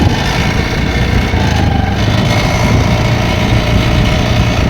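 Honda Dio BS6 scooter's 110 cc single-cylinder engine running steadily while it is ridden, with an unwanted noise from underneath. The mechanic traces the noise to the exhaust silencer: a mounting bolt has fallen out and the bracket is cracked, so the parts knock against each other as the scooter vibrates.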